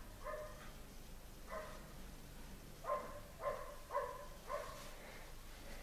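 A small dog barking faintly in the background: about seven short, high yaps at uneven intervals, bunched in the second half.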